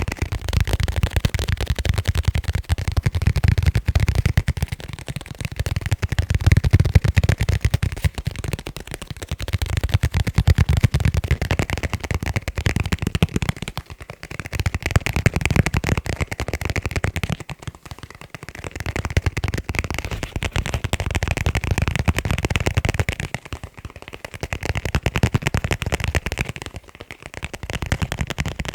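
Fast tapping on leather cases: a dense run of quick taps in stretches of a few seconds, broken by short pauses.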